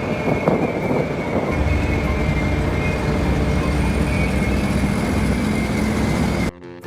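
Bucket wheel excavator running: a heavy mechanical rumble and clatter with a steady high squeal running through it. The rumble grows heavier about one and a half seconds in, and the sound cuts off suddenly near the end.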